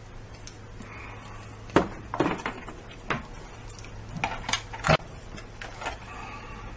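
Hard plastic clicks and knocks from a black plug-in charger adapter being handled and pushed into the sockets of a plastic power strip. There are several sharp clicks between about two and five seconds in, and a lighter one near six seconds.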